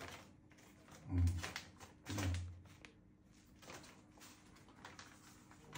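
Light kitchen handling noise: clicks and rustles of a plastic seasoning packet and utensils, with two short murmured hums from a man about one and two seconds in.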